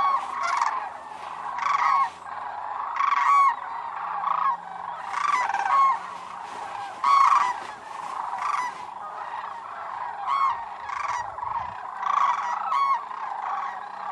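Sandhill cranes calling: loud rolling, trumpeting calls follow one another about once a second, over a steady background chorus of more cranes.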